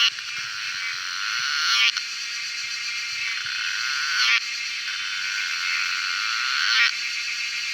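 A dense, high-pitched chirring animal chorus, like calling frogs or insects. It swells to a peak about every two and a half seconds and then drops off suddenly.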